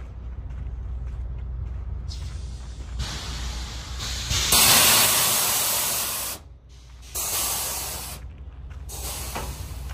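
Compressed air hissing from a road train's air brake system in several bursts, the loudest about halfway through and cutting off sharply, then two shorter ones, over the low rumble of the prime mover's diesel engine as the side-tipper trailers start rolling.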